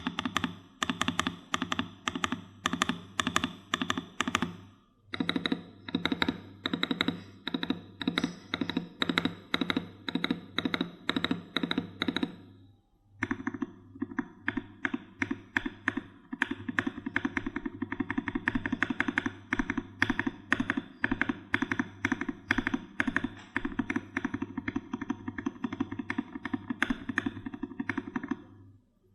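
Keydous NJ68 mechanical keyboard with a brass plate and modded Gateron Black Ink v2 linear switches being typed on fast, a steady stream of keystrokes. The typing breaks off briefly about five and thirteen seconds in.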